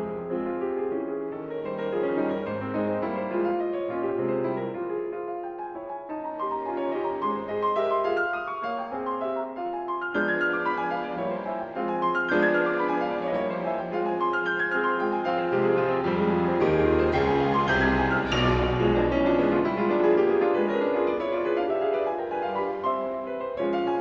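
Instrumental background music led by piano, a slow classical-style piece. About two-thirds of the way through, a deep low swell and a brief hiss join in.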